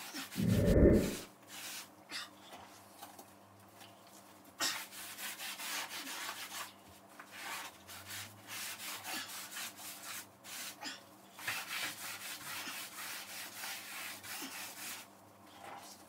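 A sponge scrubbing a greasy painted kitchen ceiling with soapy water to degrease it, in repeated strokes with short pauses. A loud dull thump comes about half a second in.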